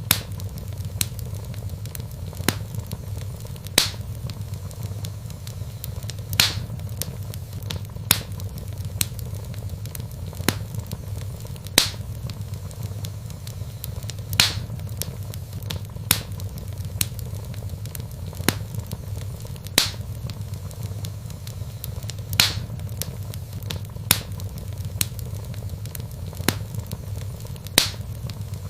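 Wood fire burning in a fireplace: sharp crackles and pops at irregular intervals, a louder pop every couple of seconds, over a steady low rumble of the flames.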